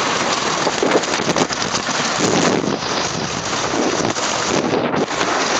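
Wind rushing over the microphone and the rattle of a wooden roller coaster train running fast along its track, a steady loud roar.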